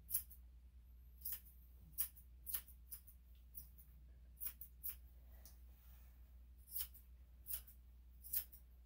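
Steel grooming scissors snipping through the long hair on a Maltese's face: about ten short, sharp snips at irregular intervals, some close together. A low, steady hum runs underneath.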